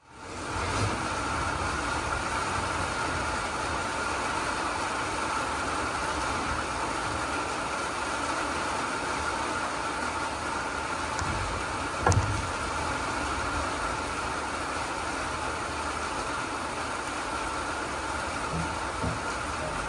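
Steady monsoon rain pouring onto a wet paved patio, with a low rumble underneath, fading in at the start. A single sharp crack about twelve seconds in is the loudest moment.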